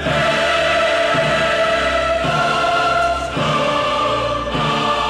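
Choral music: a choir singing sustained chords that change about once a second.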